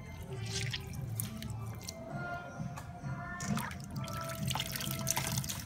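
Water splashing and dripping as hands rub and squeeze sliced vegetables in a steel bowl of water, in irregular sloshes. Music plays in the background.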